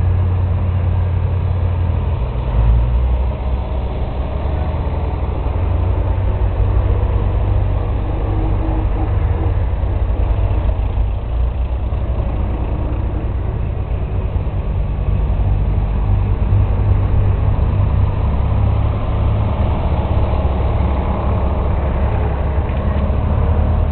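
Farm tractor engines running steadily, a low, even engine drone.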